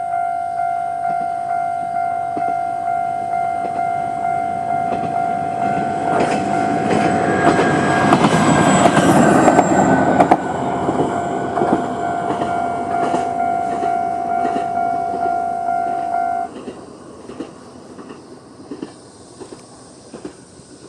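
Japanese level-crossing alarm ringing a steady, repeating tone while a Moka 14 diesel railcar passes over the crossing. The railcar's engine and wheel clicks build to their loudest about eight to ten seconds in and fade. The alarm cuts off suddenly about sixteen seconds in as the crossing clears.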